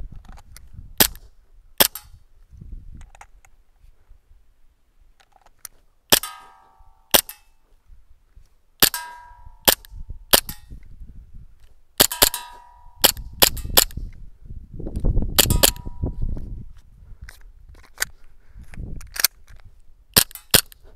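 WE Glock 19 gas blowback airsoft pistol firing about eighteen shots in uneven strings, with a pause of several seconds after the first two and quick doubles and triples later. Several shots are followed by a short metallic ring, BBs striking the steel plate targets. A low rumble swells and fades around the middle.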